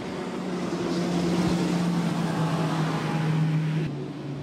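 Four Mercury 250 HO outboard motors on a Midnight Express 39-foot patrol boat running at high speed as the boat passes close by: a steady engine tone that dips slightly in pitch, over the hiss of spray and wake off the hull. The sound drops away suddenly near the end.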